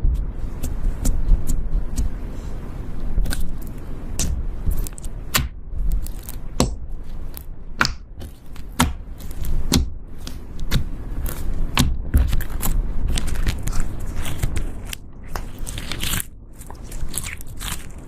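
Slime being squeezed and kneaded by hand, giving irregular crackling and popping clicks.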